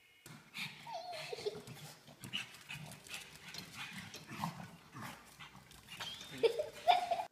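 A pug giving short yelps and whines that slide down in pitch, the loudest near the end, over quick clicking of its paws on a tile floor as it scrambles about.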